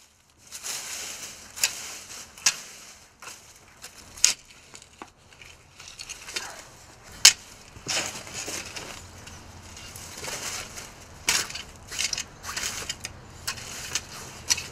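Dry leaves being scraped aside and a tool digging into damp soil, with sharp scrapes and crunching strikes at an irregular pace over a rustle of leaves and earth.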